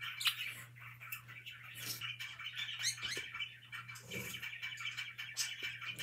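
Budgerigars chattering and chirping: a continuous run of short chirps and warbles with a few louder sharp calls, over a low steady hum.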